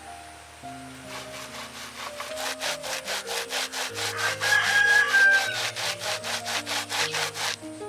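Ear of fresh corn rubbed back and forth on a hand grater of punched sheet metal over a wooden board: steady rasping strokes, about three a second, growing louder after the first second or two.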